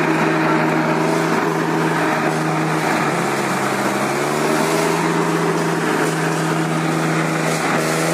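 Tractor diesel engine running at high revs and pulling hard under load in a tractor tug-of-war, its pitch sagging slightly about three seconds in and then recovering.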